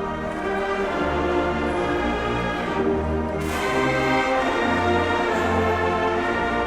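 Marching band brass playing sustained chords over deep bass notes that shift about once a second, with a bright crash about three and a half seconds in.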